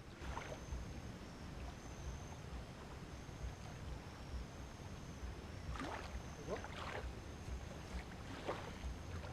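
Ocean surf breaking on the beach with wind on the microphone, a steady low rumble. A few short sweeping sounds come through about six and eight and a half seconds in.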